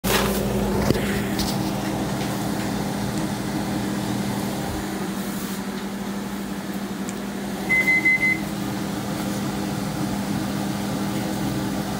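Microwave oven running with a steady hum. A quick series of high electronic beeps comes about eight seconds in.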